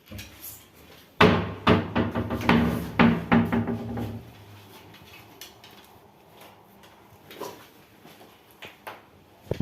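A burst of clattering knocks with some ringing, lasting about three seconds, as hard objects are handled and set down, followed by a few light clicks.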